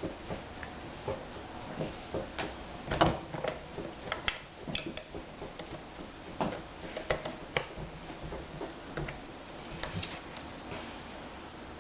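Envelope Punch Board punching and scoring a sheet of paper: scattered clicks and knocks of the punch and scoring tool, with the paper handled in between as it is turned and realigned.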